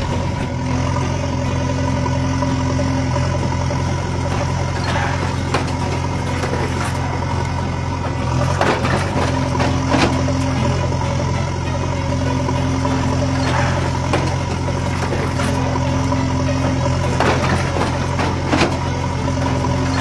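Heavy engine idling steadily, with a higher hum that comes and goes every few seconds, as of a working excavator. A few faint clicks come about halfway through.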